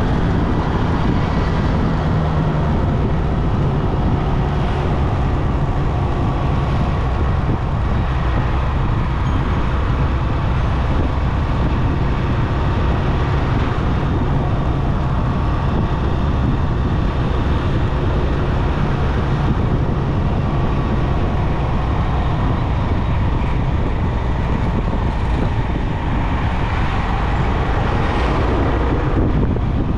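Steady road noise of a motorcycle on the move: wind rushing over the microphone, with the engine running underneath at an even speed.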